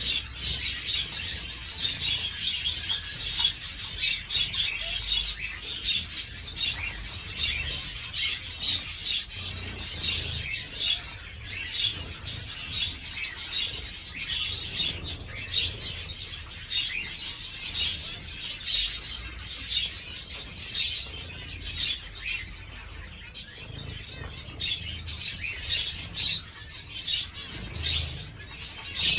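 A flock of small aviary finches, zebra finches among them, chirping constantly in dense, overlapping short calls, with brief wing flutters as birds bathe in a tray of water.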